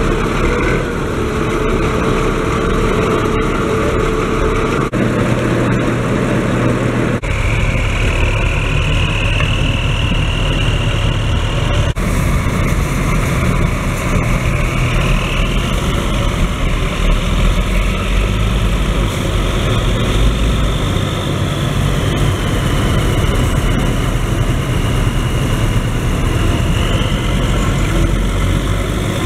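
Several large Schlüter tractors' diesel engines running, mostly at idle, a deep steady rumble. From about seven seconds in, a high whistle wavers up and down over it. The sound changes abruptly a few times where shots are cut together.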